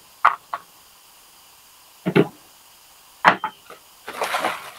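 Hard plastic blower-adapter parts being handled and set down on a workbench: a few separate light clacks, then a short crinkly rustle of a plastic bag near the end.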